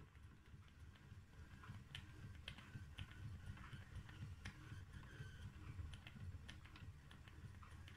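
Wilesco live-steam model V-twin engine running, heard faintly: a low, fast rumble from the turning mechanism with light, irregular clicks and ticks.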